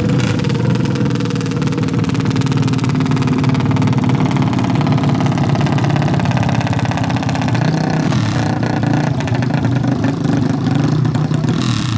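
Four-stroke 450 ATV engines running steadily, with a dense rapid firing pulse and little change in pitch.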